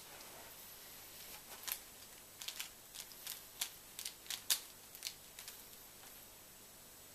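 Plastic clicks of a 3x3 Rubik's Cube's layers being turned by hand, a run of about a dozen irregular clicks that stops about five and a half seconds in.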